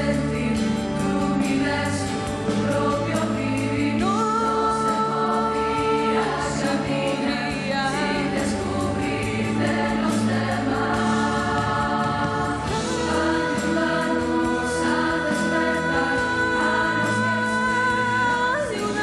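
A choir and a female soloist singing live into microphones, with instrumental accompaniment. The soloist holds long, wavering notes, sliding up into a new held note about four seconds in and again near the end.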